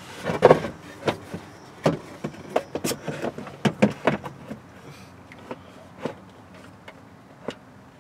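Knocks, clunks and scrapes of a plywood shelf carrying a car amplifier being lowered into a carpeted tray and shifted into place by hand, with scattered clicks. The knocks come thick in the first half and thin out later.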